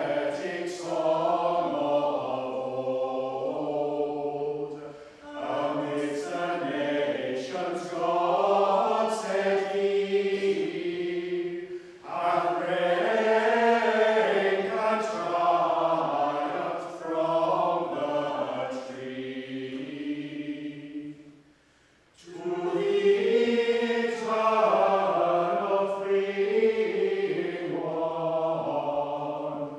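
A group of voices singing chant together in unison, in four long phrases separated by short breaths, with the clearest pause about three-quarters of the way through.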